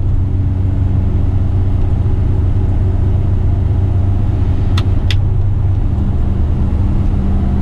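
Heavy rigid truck's diesel engine running steadily as it drives, heard from inside the cab, with the engine note shifting about six seconds in. Two short sharp clicks about five seconds in.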